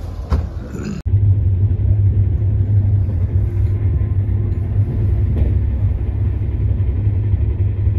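Running noise of a moving passenger train heard from inside an LHB coach: a loud, steady low rumble. It starts abruptly about a second in.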